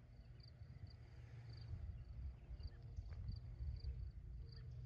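Faint outdoor ambience: short, high chirps repeating every half second or so, over a low steady rumble of wind.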